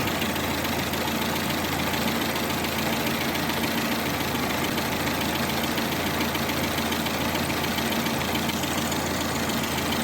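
Lada Granta inline-four engine idling steadily with a knock that the owner puts down to the camshaft.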